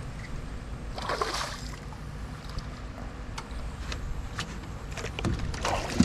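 Water splashing and sloshing beside a small boat as a hooked redfish is played close in, with one louder splash about a second in and a few sharp clicks later, over a steady low rumble.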